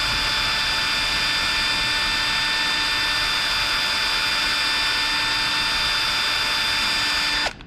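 Electric drill running steadily with a 1/16-inch bit, drilling a small pin hole through a wooden disc into its base. A steady high whine that is switched off near the end, its pitch dropping briefly as it stops.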